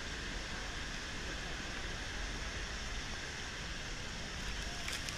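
Steady rushing noise of Niagara Falls' falling water and spray, even and unbroken, with a few short clicks near the end.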